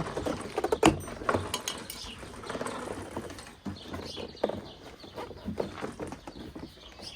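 Plastic door trim panel being pulled and handled, giving scattered knocks and clicks. The loudest come in the first second and a half and grow sparser after.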